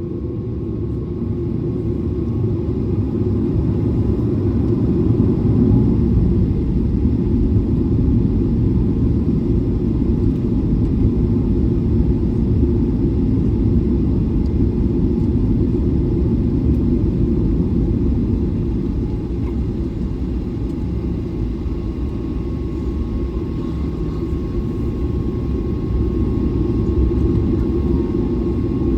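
Airliner cabin noise: a steady low rumble from the engines and airframe, with a faint steady tone above it.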